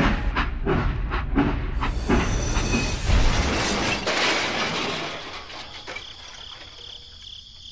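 Toy locomotive running on its track with a rhythmic clacking. About three seconds in it hits rocks and derails with a crash, and the noise then fades.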